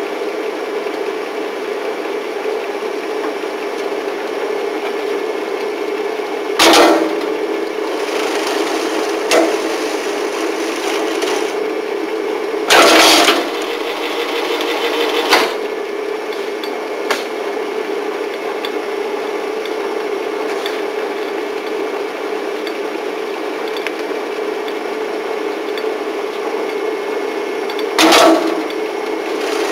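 F&G spiral coil binding machine running with a steady motor hum, broken by a handful of loud clatters as a book is worked through it. The longest clatter comes about halfway through and the last near the end.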